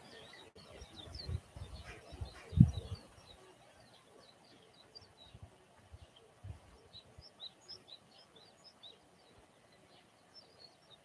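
Small birds chirping repeatedly. About one to three seconds in come low rumbling thumps, the loudest a single sharp one near the three-second mark.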